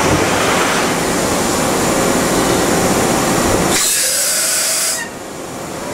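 CNC horizontal machining center running a dry run: a dense mechanical rumble and rattle of the machine in motion. About four seconds in, a sharp hiss sounds for about a second, then the machine noise drops away.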